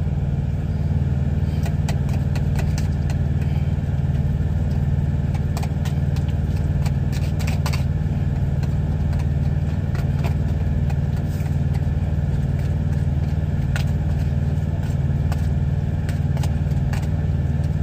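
Steady low drone of an idling truck engine, heard inside the cab, with scattered light clinks and scrapes of a utensil working potatoes in a foil pan.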